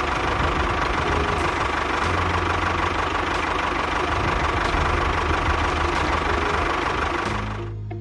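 A small engine running steadily, fading away near the end.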